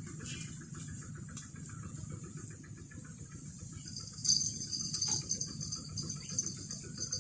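Outdoor ambience of chirping insects and birds over a steady low rumble, with a high buzzing insect trill coming in about four seconds in.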